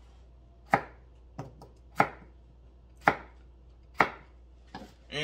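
A knife dicing a peeled root vegetable on a plastic cutting board: slow, separate chops about once a second, each a sharp knock on the board, with a few lighter taps between.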